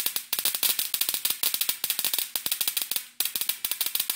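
Ignition coil fired by a repaired MSD capacitive-discharge ignition box, its spark jumping an open gap at the coil tower as a rapid train of sharp snaps, about ten a second, with a short break about three seconds in. The steady sparking shows the box working again.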